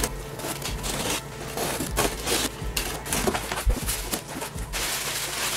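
Large cardboard shipping box being opened: a box cutter slitting the packing tape, the cardboard flaps pulled open, and packing paper rustling as a hand reaches in. Irregular crackles and scrapes, with two longer rustles.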